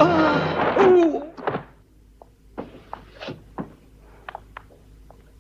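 A short hooting call with a falling pitch as the score ends, followed by scattered light knocks and clicks.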